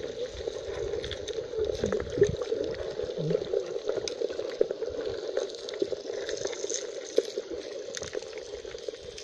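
Muffled underwater sound from a camera held beneath the sea surface: a steady hum with bubbling and scattered small clicks and crackles.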